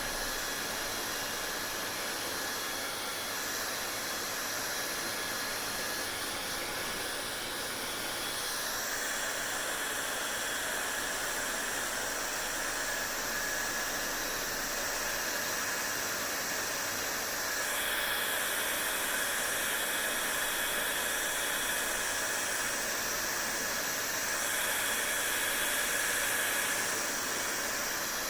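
Hair dryer running steadily: a continuous rushing airflow with a faint motor whine, its tone shifting slightly about nine seconds in and again about eighteen seconds in.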